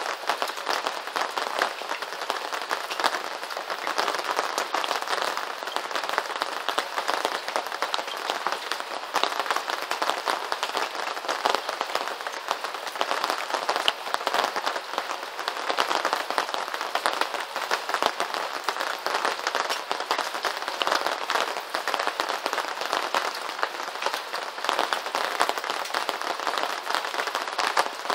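Steady rain, a dense crackle of countless small drop hits with almost no low rumble.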